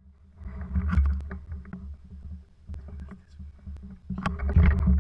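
Close rustling, crackling and dull knocks of a hunter moving with a rifle through dry bush at night, with a heavy low rumble of handling noise on the camera. The noise eases off in the middle and picks up again about four seconds in.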